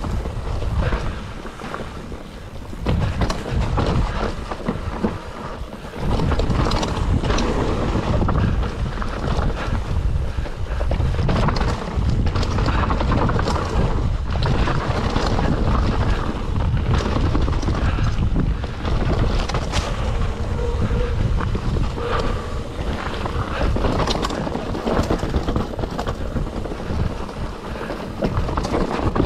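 Mountain bike descending a dirt forest trail at speed. Wind buffets the microphone, the tyres rumble over the dirt, and the bike rattles and knocks over bumps. It gets louder about six seconds in.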